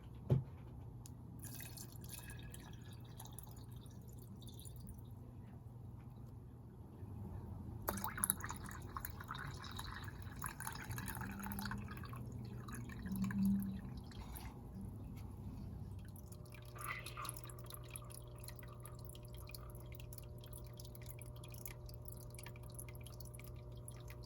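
Small aquarium water dripping and bubbling, with many small clicks over a steady low hum. The water gets busier and louder for several seconds in the middle.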